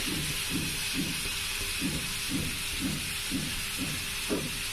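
Spice masala with water cooking in a frying pan over a gas flame: a steady sizzling hiss, with low bubbling pops about twice a second.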